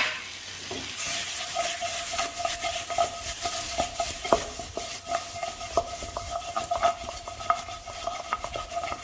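Masala frying in a pan while a spoon stirs it, knocking repeatedly against the pan over a steady sizzle. The pan gives a ringing tone that carries through the stirring.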